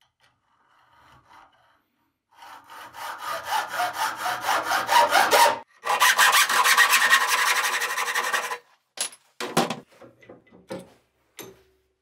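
Hand hacksaw cutting through a thin copper tube held in a bench vise, in quick even back-and-forth strokes, pausing briefly about halfway before sawing on until the tube is cut through. A few short knocks of metal follow near the end.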